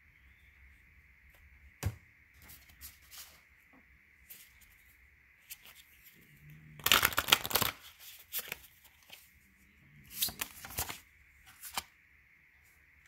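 A deck of oracle cards being shuffled by hand: scattered taps and rustles of cards, with a louder stretch of shuffling about seven seconds in and another about ten seconds in.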